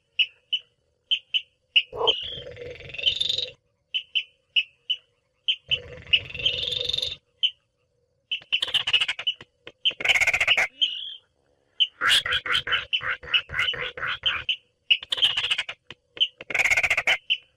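Baillon's crake calling: rapid clicking rattles repeated with short gaps, between runs of single ticks a few a second. Twice, early on, a longer, harsher call rises in pitch.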